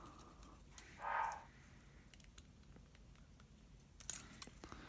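Faint clicks and taps of a tiny-whoop quadcopter's plastic frame and motor being handled. A short, louder muffled sound comes about a second in, and a few sharper clicks come near the end.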